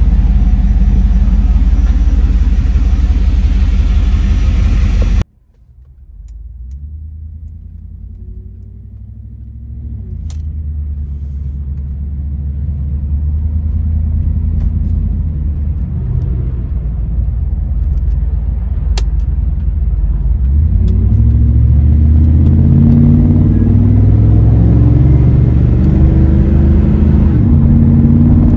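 Pontiac Firebird Formula Firehawk's 5.7-litre LT1 V8 idling loudly at the rear of the car. The sound cuts off abruptly about five seconds in. The engine is then heard from inside the cabin as the car drives, growing louder and rising in pitch as it accelerates.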